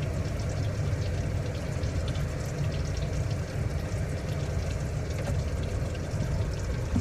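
French fries sizzling in a pan of hot oil: a steady crackle with fine pops.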